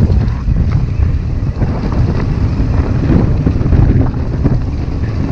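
Wind buffeting the microphone of a camera on a mountain bike descending a dirt and rock trail, with the tyres rumbling over the ground and frequent small knocks and rattles from the bike.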